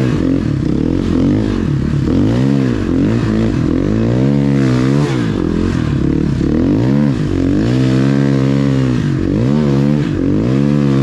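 A snowbike's dirt-bike engine revving up and down under the rider's throttle, its pitch rising and falling about eight times.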